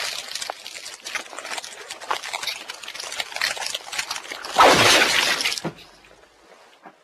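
Transformation-belt sound effect from the Century King Sun Driver: a dense run of crackling clicks, then a loud shattering burst about four and a half seconds in that cuts off about a second later.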